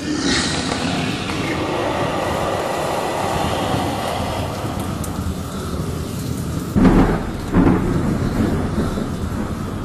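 Thunderstorm soundtrack: a steady rushing, rain-like noise with low rumbling, and two loud low booms about seven seconds in.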